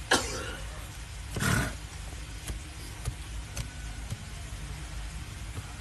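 Heavy hoof knife paring the horn of an overgrown donkey hoof held on a wooden block: a sharp crack of the blade at the start, then a few light clicks as it cuts. A short rushing burst about a second and a half in.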